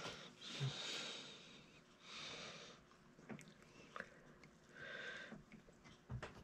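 A person breathing heavily through the nose, several soft exhales, while straining to press a steel piston-pin C-clip into its groove by hand. A few faint small clicks come from the clip being worked against the piston.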